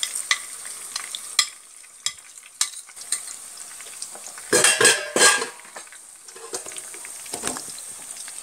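Crushed shallots, tomato and ginger-garlic frying in hot coconut oil in a pan, a steady sizzle with scattered crackles and spoon clicks. A quick run of louder knocks comes about halfway through.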